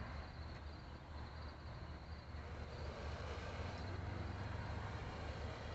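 Crickets chirping in a steady, evenly pulsing high trill over a low, steady rumble.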